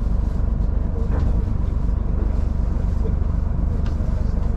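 A fishing boat's engine running with a steady low rumble.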